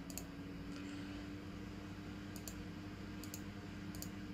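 Computer mouse buttons clicking, about four separate clicks spread across a few seconds, each a quick double tick of press and release, over a faint steady electrical hum.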